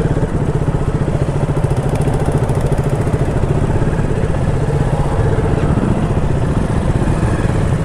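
KTM Duke 200 motorcycle's single-cylinder engine running steadily.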